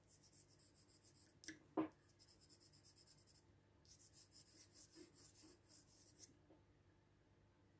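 Graphite pencil sketching on paper: faint, quick scratching strokes, several a second, in two runs that stop about six seconds in. One short soft knock about two seconds in is the loudest sound.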